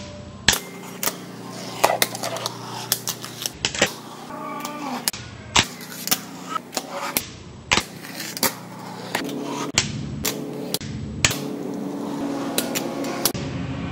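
A fingerboard doing tricks on a stone countertop and a box ledge: many sharp, irregular clicks and clacks as the deck is popped, caught and landed, with its small wheels rolling on the stone between them.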